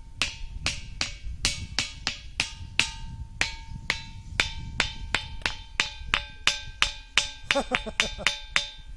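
Thinthini ringing rock, a large boulder, beaten with a hand-held striking stone in a steady run of about two and a half blows a second. Each blow rings with a clear, lingering tone instead of a dull knock.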